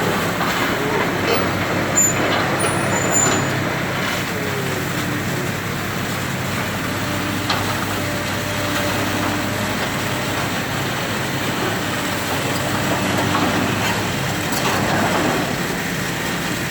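Heavy diesel machinery running steadily, with a few faint knocks.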